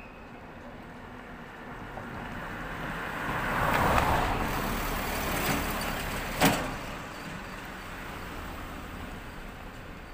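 A car passing on the road alongside, its tyre and engine noise swelling to a peak about four seconds in and then fading. A single sharp click a little after six seconds.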